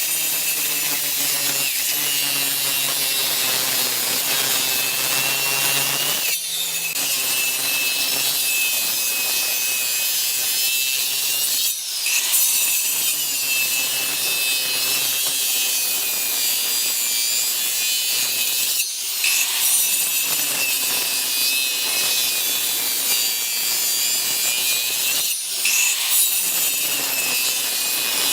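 Electric power tool working wood, a steady motor hum under a loud hissing cut. It breaks off briefly four times, about every six or seven seconds.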